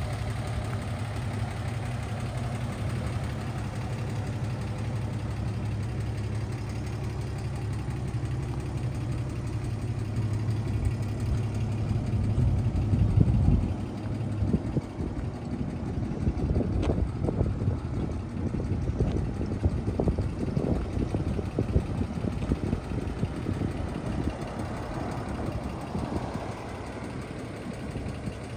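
1954 Chevrolet 3100 pickup's inline-six engine idling steadily. It grows louder and rougher about halfway through.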